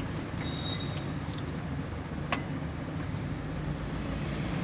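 Steel gears of a tractor gearbox clicking sharply a couple of times as a gear is slid along its shaft by hand, over a steady low rumble.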